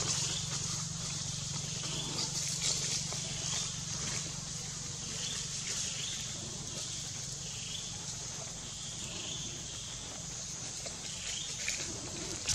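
Outdoor natural ambience: a steady high hiss with short, repeated animal chirps.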